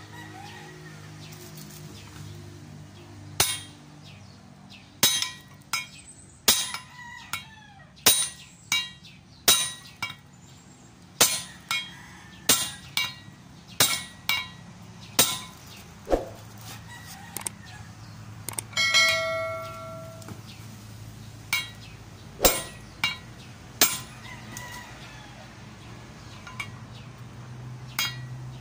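Hammer blows driving a new king pin down into the steering knuckle of an Isuzu Elf truck: about twenty sharp metallic strikes, roughly one a second, with a short pause partway through. A rooster crows once during the pause.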